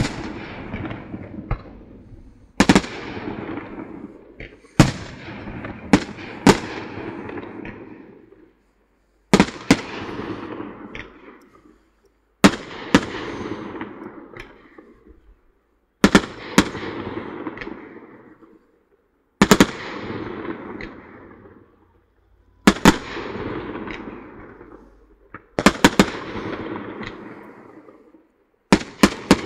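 Aerial fireworks shells bursting: a loud bang every few seconds, sometimes two in quick succession, each followed by a long fading tail.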